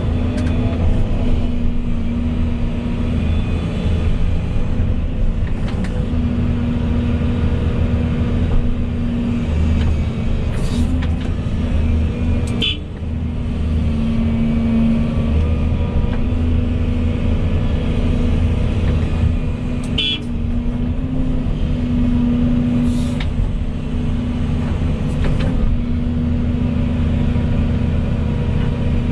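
Volvo EC220E excavator's diesel engine running steadily while it works, its hum swelling and easing at intervals as the load changes. A few brief sharp high sounds cut through, about a third of the way in and again about two-thirds through.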